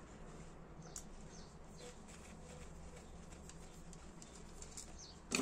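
Faint steady room hum with a few light ticks of a thin screwdriver tip against a metal lighter as it is pushed onto the gas valve, and a sharper click at the very end.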